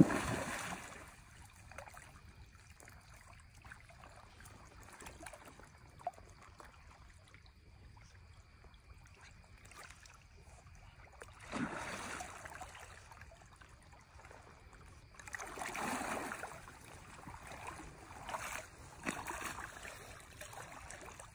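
A hooked salmon splashing hard at the river surface right at the start, over faint running water. Later come several bursts of water swishing as a man wades through the river.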